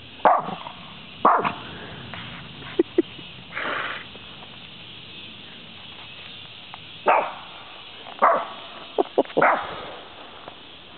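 Small dog barking at a deer, in single barks with pauses of several seconds between: two in the first second or so, then a cluster of quicker barks between about 7 and 10 seconds in.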